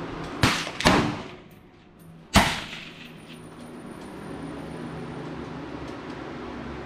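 Three sharp rifle shots on an open-air firing line: two in quick succession about half a second apart near the start, then a third, the loudest, about two seconds in, each trailing off briefly.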